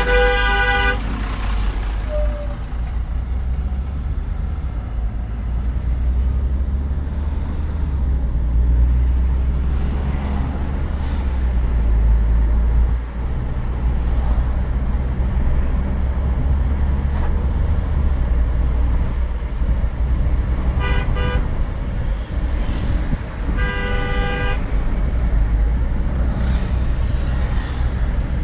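Steady low rumble of a Land Rover Discovery Sport driving on the road, with a car horn honking near the start and twice more near the end.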